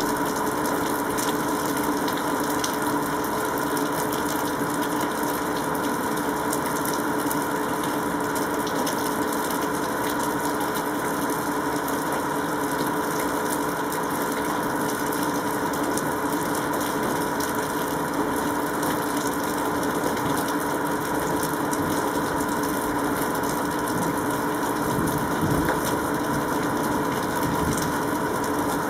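Steady mechanical hum under a constant hiss, holding several fixed tones without change; a faint low rumble swells near the end.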